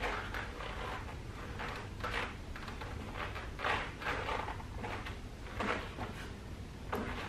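Microfiber towel rubbing across car paintwork in a series of irregular swishing strokes, with a sharp click near the end.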